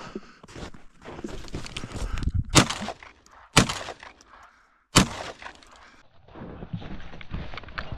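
Footsteps crunching through snow, broken by three sharp shotgun shots: the first two about a second apart, the third after a brief silence.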